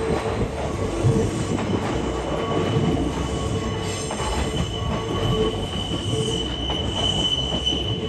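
A Kintetsu Minami-Osaka Line train rounds a sharp curve, its wheels squealing in a steady high-pitched whine that grows stronger near the end, over the rumble and clatter of the passing cars.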